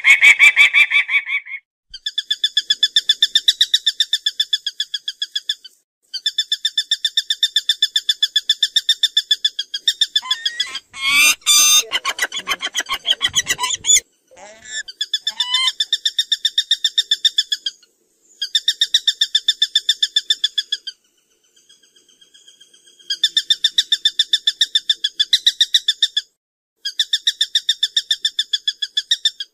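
Peregrine falcon giving its rapid, repeated cacking call in bouts of a few seconds each, with short pauses between. Near the middle there is a louder, wavering call that slides in pitch.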